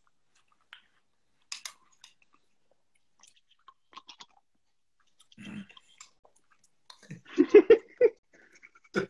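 A person chewing fruit salad, with a few faint clicks scattered through the first seconds; a short laugh about seven seconds in.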